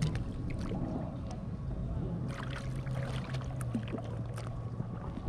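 Water splashing and trickling around an inflatable raft drifting on a river, over a continuous low rumble, with a steady low drone for a couple of seconds midway.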